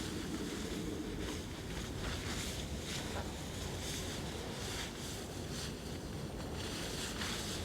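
Wind rumbling on the microphone, with a soft hissing swish every second or so.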